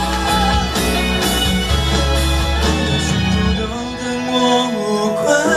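Instrumental backing track of a Mandarin pop ballad, played as karaoke accompaniment, with sustained pitched parts, drum hits and a strong bass that drops out about two-thirds of the way through.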